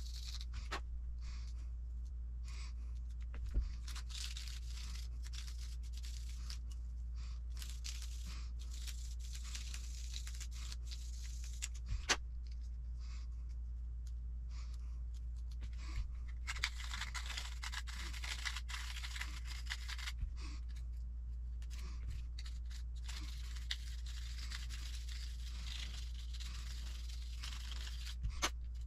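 Scraping and rasping of a reamer worked through the hinge-pin holes of plastic RC10T suspension arms, in on-and-off spells with a few light clicks, to free pins that bind in the arms. A low steady hum runs underneath.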